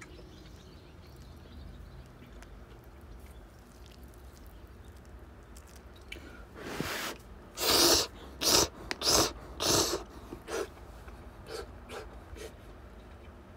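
A person slurping cup miso ramen noodles: one long slurp about halfway in, then a quick run of four shorter slurps, tailing off into a few lighter ones near the end.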